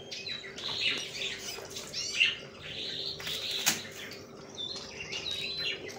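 Many small birds chirping and twittering, their short calls overlapping, with a couple of sharp clicks.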